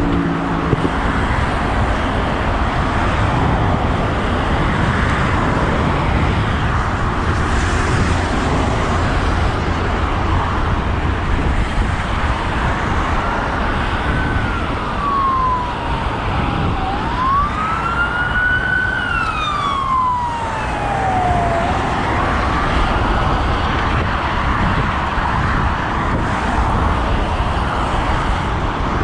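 Steady road noise of traffic and wind. About halfway through, an emergency vehicle's siren wails for about ten seconds in slow rising and falling sweeps, then fades out.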